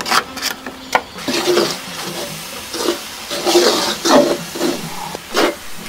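Wooden spoon stirring and scraping grated ash plantain and finger-millet flour in a large wok, in uneven strokes with a few sharp knocks of the spoon against the pan, one at the start, one about a second in and one near the end.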